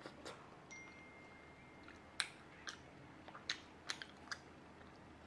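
Close-up chewing of raw honeycomb: quiet wet mouth sounds with a series of short, sharp, sticky smacks and clicks in the second half.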